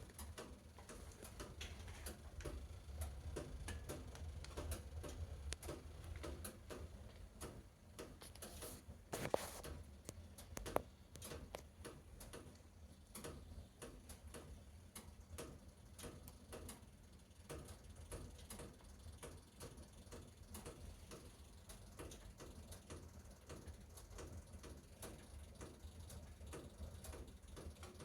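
Fire in a fireplace burning a faux leather jacket: irregular crackling and ticking pops over a low rumble of flame, with a louder crack about nine seconds in and another near eleven.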